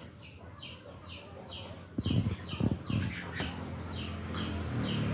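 A chick peeping over and over: short high notes that fall in pitch, about two a second. Around two seconds in come a few sharp knocks from plastic model-railway track pieces handled on the wooden board, and a low hum grows louder near the end.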